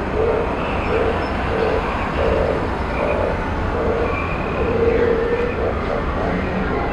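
A steady low rumble under a run of short, repeated mid-pitched notes of uneven length, about two a second.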